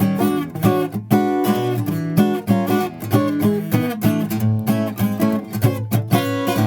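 Furch Vintage 3 OM-SR orchestra-model acoustic guitar played solo, with chords and single notes ringing in quick succession.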